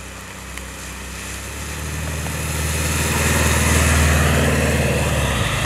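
A lowered 1990 Volkswagen Caravelle T3 drives past on a wet road. Its 2.1-litre water-cooled flat-four (Wasserboxer) engine drone builds and peaks about four seconds in, then eases off. The tyres hiss on the wet asphalt as it passes.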